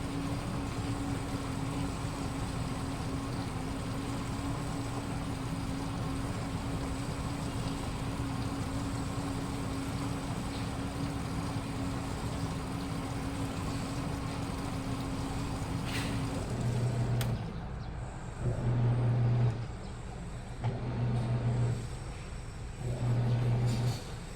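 Washing machine spinning with a steady hum and whir. About two-thirds of the way through, after a click, the spin stops. The motor then hums in short bursts of about a second and a half, repeating every couple of seconds as it turns the drum in short spells.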